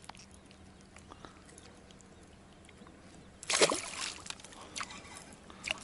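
A small perch flung off the lure lands in the lake with a short splash about three and a half seconds in, after faint clicks of handling the rod and hook.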